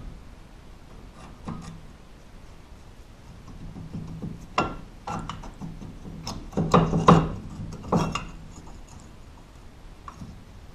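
Front disc brake caliper being worked onto the rotor by hand: scattered metal knocks and scraping, loudest in a cluster a little past the middle.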